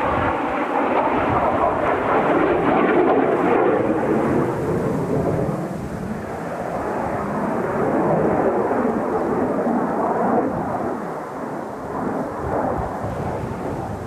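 Jet noise from Kawasaki T-4 jet trainers flying past. It swells to a peak a few seconds in, eases, swells again a little past the middle, then fades somewhat.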